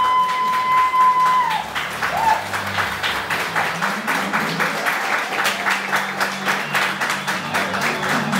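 A small crowd applauding, the claps coming thick and fast after the first second and a half. Near the start a single high note is held, then stops.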